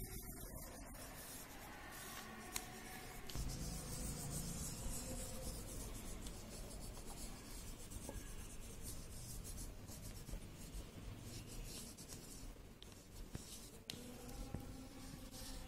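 Violet wax crayon rubbed back and forth over a sheet of paper laid on leaves, in quick repeated scraping strokes.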